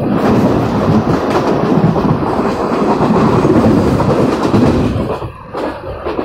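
A MEMU electric multiple unit passing close alongside on the adjacent track, heard from the open door of a moving train: a loud, dense rush of wheels on rail and air that drops away about five seconds in as its last coach clears.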